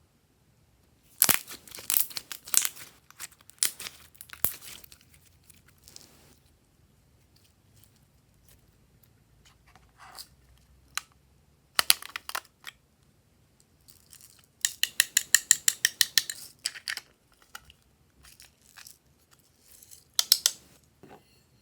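Slime being pressed and stretched by hand, giving sharp crackling clicks in separate bursts, with a fast run of about six clicks a second near the middle.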